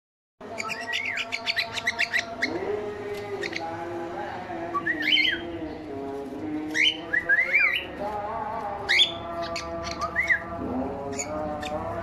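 Cockatiels chirping and calling: a quick run of short chirps in the first couple of seconds, then scattered short upward-sweeping calls, over low held tones.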